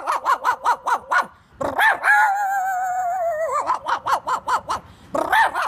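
A man's vocal imitation of a dog: a run of quick, high barks, then a long wavering howl that drops in pitch at its end, then more quick barks.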